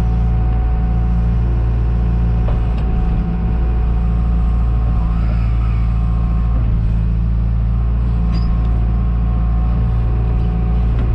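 John Deere 310G backhoe's diesel engine running steadily while digging, with a few faint clinks.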